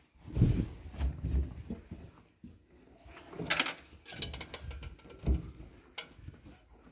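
Laundry and a washing machine being handled: irregular soft thumps, rustling and a few sharp clicks, with the loudest thumps about half a second in and again near five seconds.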